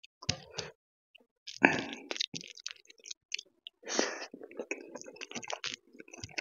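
Eating dal and rice by hand: wet squishing as fingers mix rice and dal on a metal plate, a mouthful taken about four seconds in, then close-miked chewing with many quick mouth clicks and smacks.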